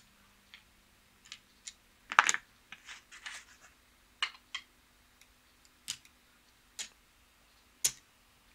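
Casino chips clicking and clacking together as a winning blackjack bet is paid out and the cards are picked up from the felt. Scattered sharp clicks, the loudest about two seconds in.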